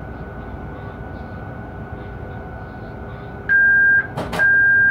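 Steady running noise inside an electric locomotive's cab. About three and a half seconds in, a loud electronic warning beep sounds for half a second, two sharp clicks follow, and the beep sounds again near the end.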